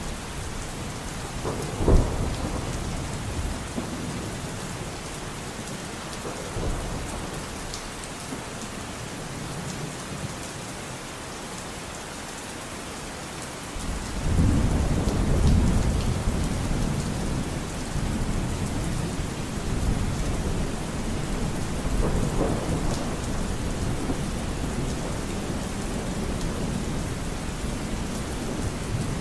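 Thunderstorm: steady rain with thunder, a sharp crack about two seconds in, a long rumble from about halfway, and softer rumbles in between and later.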